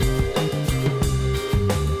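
Background music with a steady drum beat and a moving bass line.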